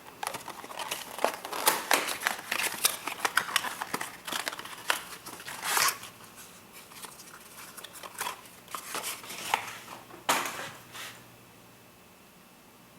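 Roll of cloth tape being handled: rustling and crinkling with a few short ripping sounds as tape is pulled off the roll, dying away near the end.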